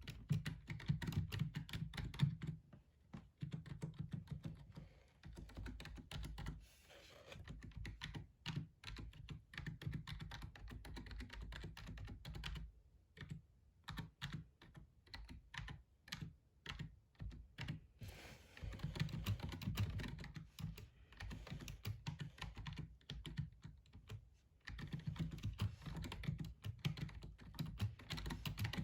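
Typing on a gaming keyboard: quick runs of keystrokes, thinning to separate, slower presses for a few seconds in the middle before picking up again.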